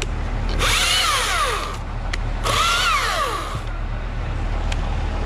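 Husqvarna T540i XP battery-powered top-handle chainsaw making two short cuts of about a second each, its motor whine falling in pitch through each cut.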